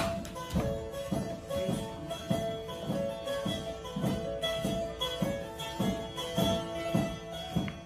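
Langleik, the Norwegian table zither, playing a halling dance tune: a melody over steady drone strings, strummed to a regular beat of about two strokes a second.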